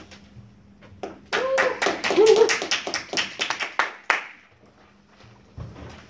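A small audience clapping for about three seconds, starting a little over a second in and dying away near the four-second mark, with a voice briefly calling out over the clapping.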